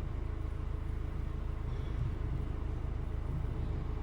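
Steady low rumble of a running vehicle engine, even throughout with no distinct knocks or changes.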